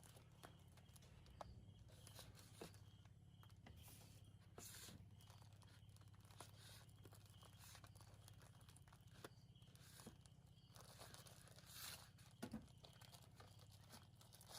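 Faint crinkling and rustling with scattered small clicks and a few brief bursts of noise, as a baby monkey handles and eats its dessert, over a low steady hum.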